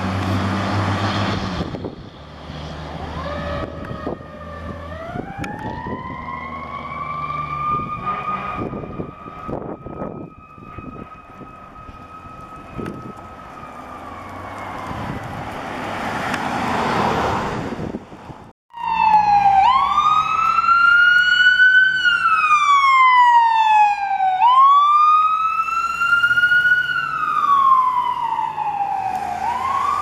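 A fire engine's diesel engine pulls away, then a siren winds slowly up, holds its pitch and winds back down. About two-thirds of the way through, a louder emergency-vehicle siren takes over with a wail that rises and falls slowly, about every five seconds.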